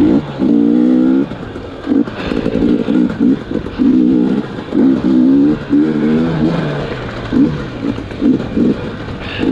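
2020 KTM 250 XC TPI two-stroke dirt bike engine, freshly rebuilt top end, revving up and dropping back again and again as it is ridden on and off the throttle.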